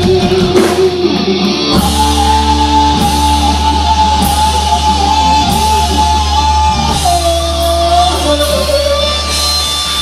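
Live hard-rock band playing with electric guitars, bass and drums. About two seconds in, a deep bass note comes in under a long held high note, which steps lower twice in the last few seconds.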